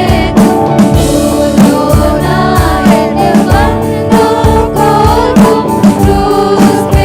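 Worship song: voices singing over a band with a steady drum beat.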